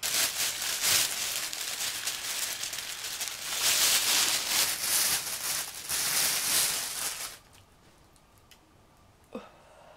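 A clear plastic vaporizer balloon bag crinkling and rustling as it is handled close to the microphone. The crinkling stops about seven seconds in.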